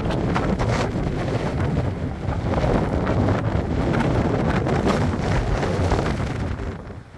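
Strong gusty wind buffeting the microphone, a heavy low rumble that eases briefly near the end.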